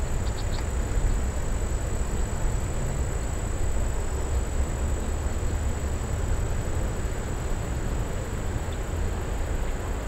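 Steady rush of river rapids, an even noise with a heavy low rumble, and a few faint ticks just after the start.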